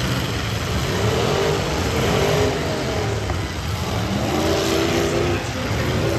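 Several demolition derby cars' engines revving hard over a steady low rumble, their pitch rising and falling as the drivers gun them around the arena.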